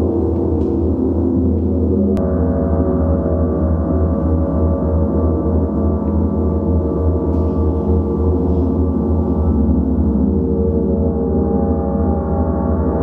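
Large suspended gongs played with a mallet give a dense, steady wash of overlapping ringing tones over a low, pulsing hum. The mix of tones changes abruptly about two seconds in.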